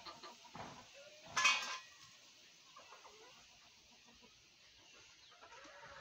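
Backyard chickens clucking softly, with one short, much louder call about a second and a half in.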